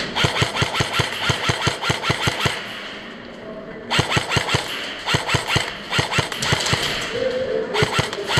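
Airsoft gun firing on full auto, fast even pops at several per second: one long burst of about two and a half seconds, then several short bursts.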